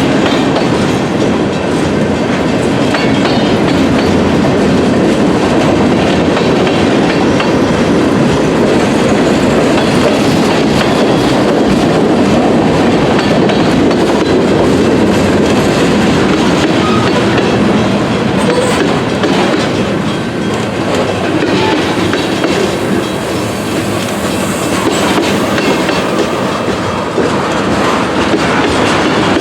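CSX freight train rolling past at close range: a steady, loud noise of steel wheels running over the rails.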